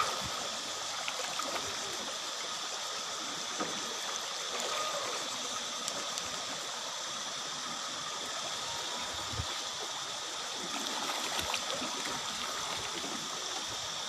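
Shallow stream running steadily over rocks, with a few small splashes of water around a child sitting in it.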